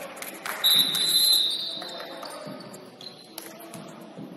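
Basketball game sounds: a ball bouncing on a hardwood court with short knocks, and a referee's whistle blown once just under a second in, a steady shrill tone lasting about a second that is the loudest sound.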